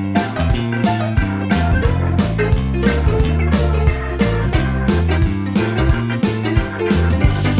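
Background music: a guitar-led rock-blues track with bass and a steady drum beat.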